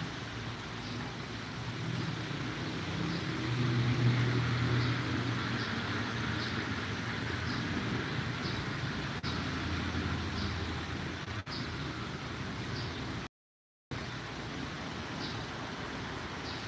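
A steady low mechanical hum that swells around four seconds in and again around ten seconds in. The sound cuts out completely for about half a second near the end.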